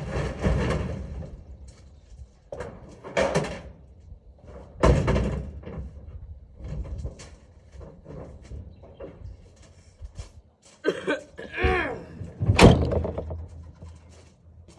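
Irregular heavy thuds and knocks as heavy objects are handled and shifted, with the loudest thud a couple of seconds before the end and a short drawn-out creak just before it.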